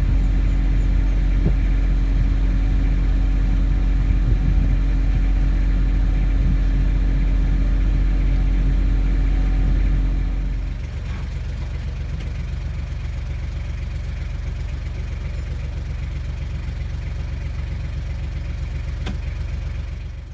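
Small ferry boat's engine running steadily under way; about halfway through it drops to a quieter, lower running.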